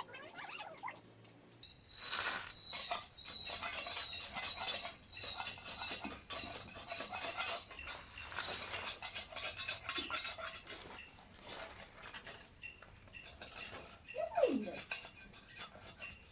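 Metal clinking and scraping, many small knocks in quick succession, from hands working on a rusty wire dish rack. A short squeak falling in pitch comes near the end.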